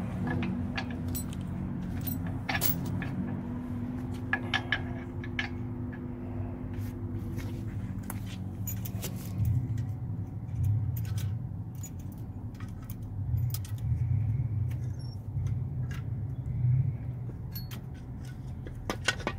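Scattered metallic clinks and taps as new roller pins are fitted into a truck's drum brake, over the steady low hum of an idling engine.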